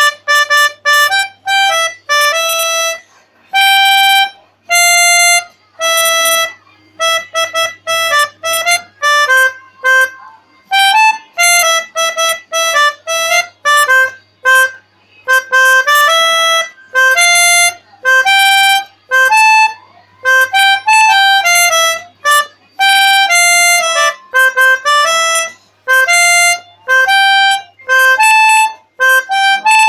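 A bus's telolet horn, a set of air horns sounded in sequence, loudly playing a tune of short stepped notes with brief gaps between phrases.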